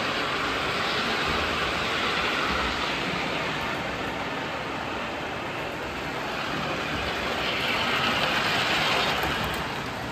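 Model train running on a layout's track, a steady rolling rush that grows louder twice as the train passes close by.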